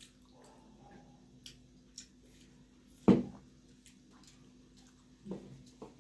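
Quiet eating sounds at a table: chewing and small mouth clicks while momos are eaten. A little after halfway there is one loud short thump, and two smaller knocks follow near the end.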